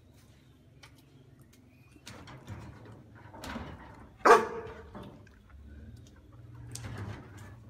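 A dog barks once, a short loud bark about four seconds in, with softer yelps before and after.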